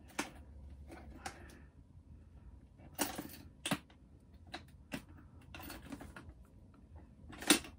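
A small key being pushed into and twisted in the front latch lock of a display case, making a string of short, sharp clicks and light scrapes. The loudest click comes near the end.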